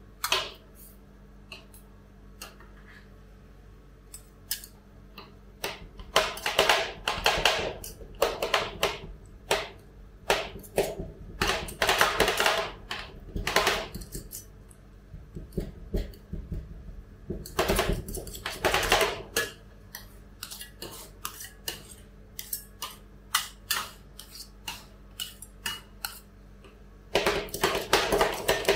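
Two metal spatulas chopping and scraping on a steel ice-cream cold plate, cutting banana into the freezing cream: quick runs of clicking taps lasting a second or two, with scattered single taps between. A low steady hum lies underneath.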